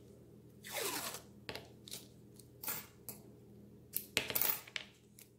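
Hands unrolling white floral tape and wrapping it around a gum paste flower's wired stem: a short scrape about a second in, a few single clicks, then a cluster of sharp clicks and rattles about four seconds in.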